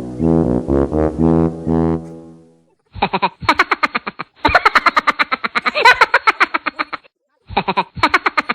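Background music: a brass-like melody of held notes, then after a short break a fast, choppy passage of rapid pulses.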